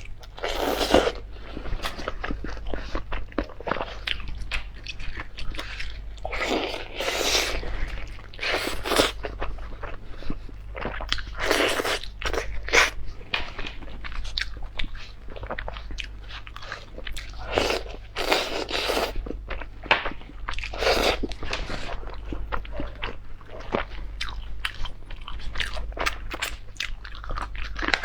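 A person eating close to the microphone, biting and chewing food, with louder bursts of mouth noise every few seconds over a faint steady low hum.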